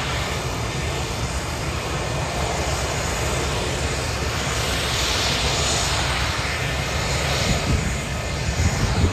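Boeing 727 jet airliner running while standing on the apron: a steady jet rumble and hiss. The high hiss swells about five seconds in.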